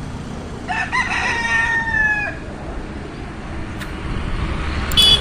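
A White Leghorn rooster crows once, a crow of a little under two seconds that drops slightly in pitch at the end. A brief sharp, high sound comes near the end.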